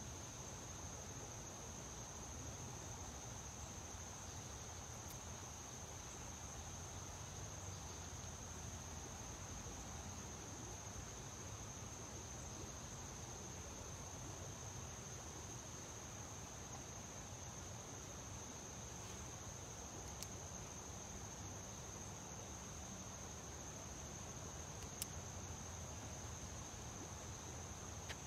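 Steady insect chorus: a continuous, unbroken high-pitched trill with a faint low background hiss, and one small click about 25 seconds in.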